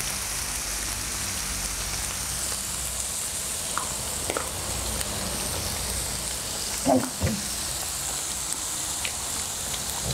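Pork belly and vegetables sizzling steadily on a hot tabletop grill pan, with a short voice sound about seven seconds in.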